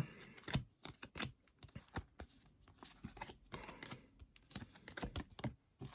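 Topps baseball trading cards being flipped through quickly one after another: a string of soft, irregular flicks and taps.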